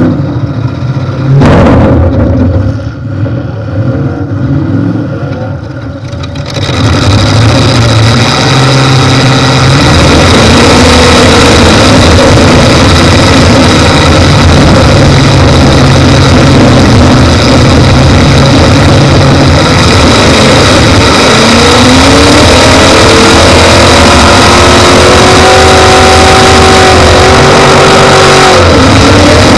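Demolition derby car's V8 engine (a 1992 Cadillac Brougham hearse) running loud through short open exhaust stacks, with one sharp bang about a second and a half in. From about six seconds it runs hard, and in the last third a whine climbs in pitch and holds as the engine revs.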